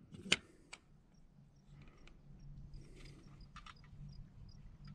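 A sharp mechanical click about a third of a second in and a softer one just after, then a few faint clicks later: a pistol's drop-in competition trigger being pulled to its break with a trigger pull gauge to measure its pull weight, about 3 pounds.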